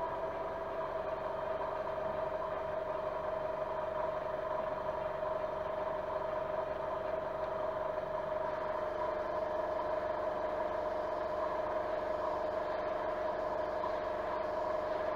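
Small airbrush compressor running steadily, a constant hum.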